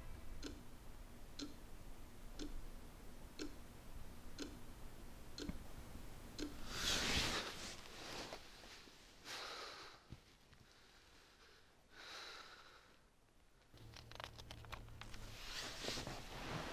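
Soft, even ticks about once a second, then a man's heavy breaths and gasps a few seconds apart, the loudest about seven seconds in, as he wakes with a start from a nightmare.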